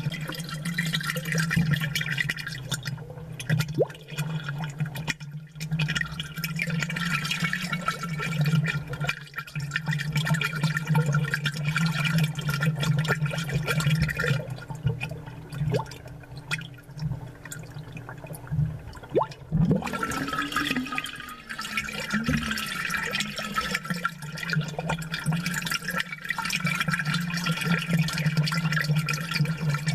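Amplified aquarium sound: air bubbles rising and gurgling in the tank water, with small pops, over a steady low hum from the aquarium's pump. The bubbling changes in tone about two-thirds of the way through.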